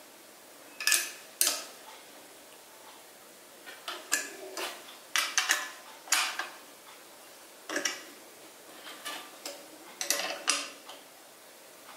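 A small metal tuning tool clicking against the tension-lug nuts of a wooden bongo as the lugs are tightened to raise the drumhead's pitch a semitone: about a dozen irregular sharp clicks.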